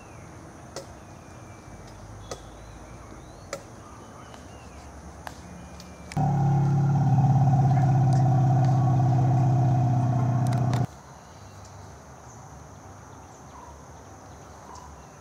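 A motor vehicle's steady drone that starts suddenly about six seconds in and cuts off abruptly almost five seconds later. Around it there is only a faint background with a few soft clicks.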